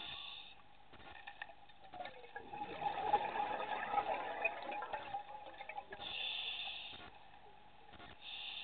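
Scuba regulator breathing underwater. A short hiss of inhalation comes at the start, then exhaled bubbles gurgle and rumble for about three seconds. Two more hissing inhalations follow, about six seconds in and near the end.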